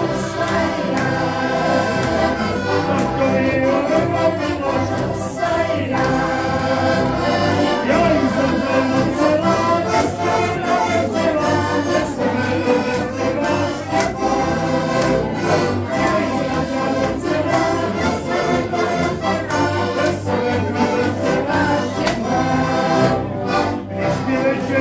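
Several accordions playing a lively folk tune together, with a group of voices singing along and hands clapping to the beat.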